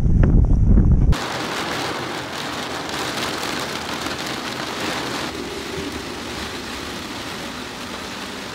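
For about the first second, a loud rumble of wind buffeting the microphone; it cuts off sharply to steady rain falling on a yacht's cabin roof and windows, heard from inside the cabin.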